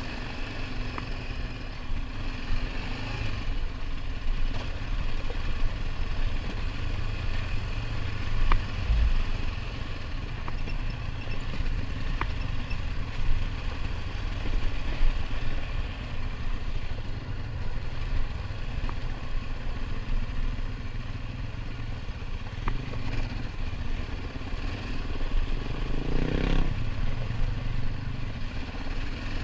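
Off-road vehicle engine running steadily while riding a rough dirt trail, with scattered clicks and knocks from the ride and a brief louder swell near the end.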